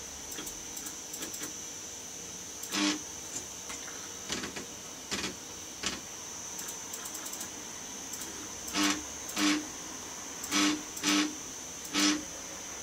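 Stepper motors of a home-built 3D printer giving about nine short pitched buzzes, each a fraction of a second, as the axes are jogged; the axis is stuck, so the motor buzzes without moving it. A faint steady high whine sits under them.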